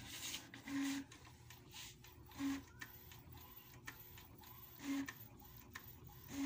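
Epson L1800 inkjet photo printer printing a test page: its print-head carriage gives a short whir every second or two, with light mechanical ticking in between.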